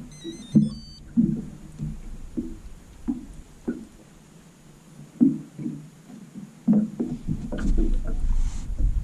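Water slapping against a small boat's hull: irregular low knocks and thuds about once or twice a second, with a low rumble swelling in the last couple of seconds.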